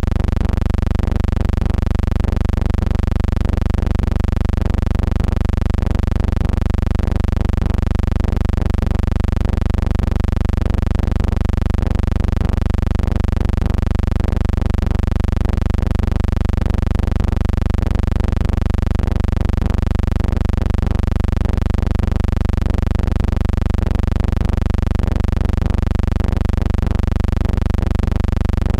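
Steady low hum with a stack of overtones that never changes, a constant drone on an otherwise soundless old film.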